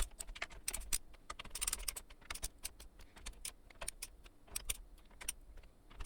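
Faint, irregular small clicks and ticks of the AIO cooler pump block's mounting screws being tightened down onto the CPU, metal hardware and a tool clicking against the bracket.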